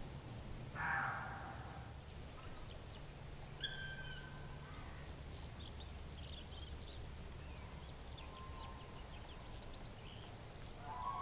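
Wild birds calling in a woodland: one harsh call about a second in, then many short high chirps and a few clear whistled notes.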